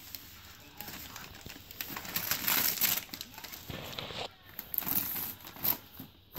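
Wrapping paper crinkling and tearing in irregular pulls as a toddler tugs at a gift-wrapped present.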